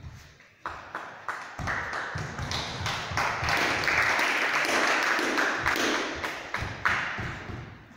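Nunchucks being swung and spun: a run of sharp clacks, then a fast whooshing rush with more clacks that builds for a few seconds and dies away near the end.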